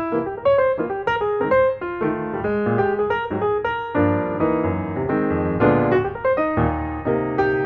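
Background piano music: a steady run of quick notes, several sounding together and each fading after it is struck.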